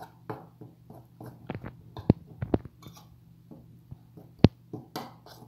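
Metal spoon stirring a dry flour mixture in a glass bowl: soft scraping with a few sharp clinks of the spoon against the glass, the loudest about four seconds in.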